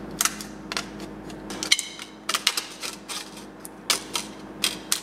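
Tin snips cutting through thin expanded aluminum mesh, each strand snipping with a sharp click in an irregular series of cuts.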